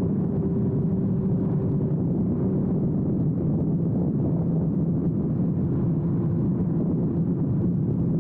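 Suzuki GSX-R1000R inline-four with a Yoshimura exhaust running at a steady cruise. The engine note holds level, dropping slightly in pitch about five and a half seconds in.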